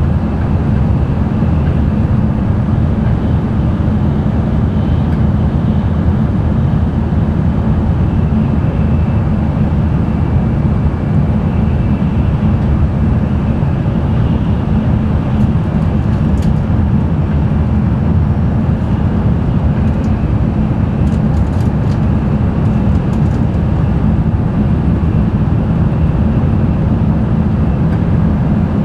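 Cabin running noise of an N700-series Tokaido Shinkansen train at speed: a steady, deep rumble with a faint high whine above it.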